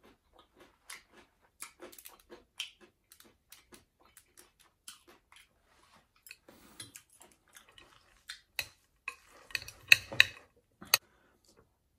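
A person chewing ramen noodles: a run of small, sharp, wet mouth clicks and smacks. About ten seconds in there is a louder cluster of clicks as metal tongs clink and scrape in a glass dish of noodles.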